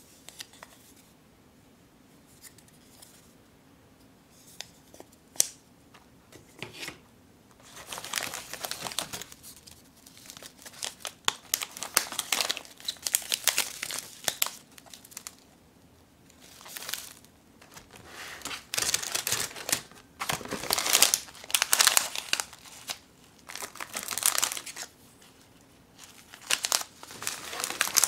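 Plastic snack wrappers, Umaibo sticks and other dagashi packets, crinkling as they are handled and lifted out of a box. The crinkling comes in irregular bursts from about eight seconds in; before that there are only a few faint taps.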